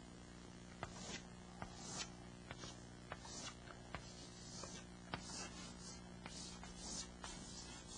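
Chalk writing on a chalkboard: a series of short, faint scraping strokes with light ticks of the chalk between them, over a steady low hum.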